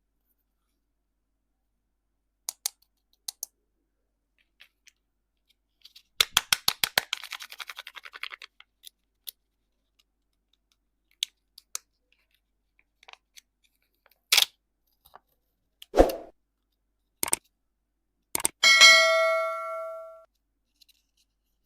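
Candy packaging being handled: scattered clicks and taps, a quick rattling run of clicks about six seconds in, then a few knocks, one of which near the end sets off a ringing ding that fades over about a second and a half.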